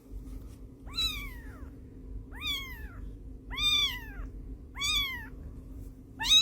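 A cat meowing five times, about once every second and a quarter, each meow rising and then falling in pitch.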